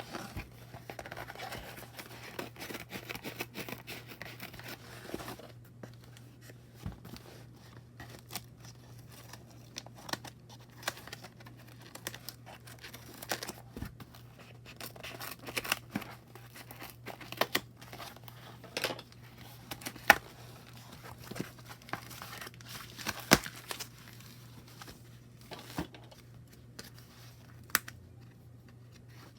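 Packaging being torn and crinkled for about the first five seconds, then scattered light taps and clicks of hands handling the box and its contents, over a steady low hum.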